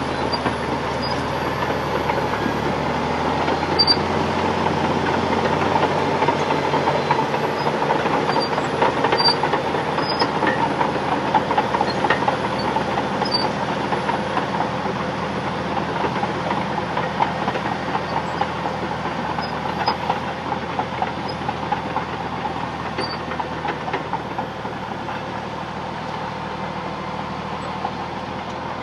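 Caterpillar D6 bulldozer's steel tracks chattering and clanking as it travels, over the steady run of its diesel engine. The rattle grows somewhat quieter over the last several seconds.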